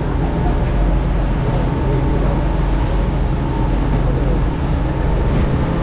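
Boat engine running steadily: an even, low drone with a thin steady whine above it.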